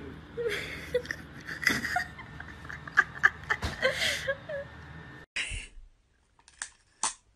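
A cat in a plastic cone chewing and smacking on a piece of raw meat, with wet clicks and a person's soft giggles. The sound cuts off about five seconds in, leaving a few short, sharp clicks.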